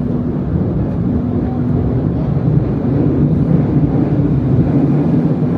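Train running: a loud, steady low rumble with a droning hum.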